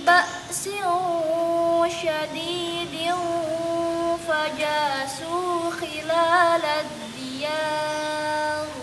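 A girl's voice reciting the Qur'an in melodic tartil style, with long held notes and wavering ornamented turns. The line stops near the end.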